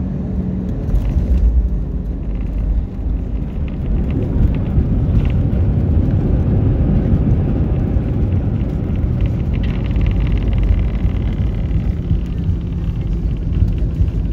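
Airliner cabin noise during the landing roll: a steady low rumble from the wheels on the runway and the engines. A higher hiss joins for a couple of seconds past the middle.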